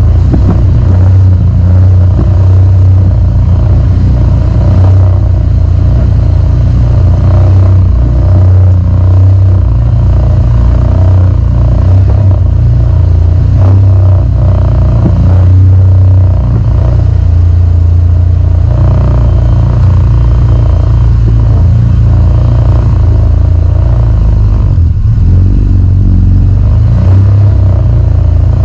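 Can-Am side-by-side UTV's engine running steadily and loud as it drives along a snowy trail, heard from inside the open cab as a continuous low drone.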